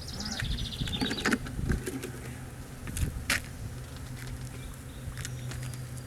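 Honey bees buzzing in a steady hum around an open hive during a nuc transfer, with scattered sharp clicks and knocks throughout.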